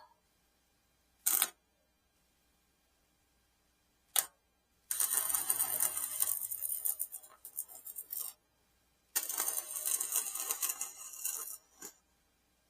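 Electric welding arc crackling: two brief tacks, then two longer welds of about three seconds and two seconds.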